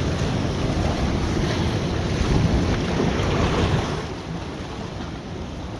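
Wind buffeting the microphone over rough surf, a dense rumbling noise that eases off about four seconds in.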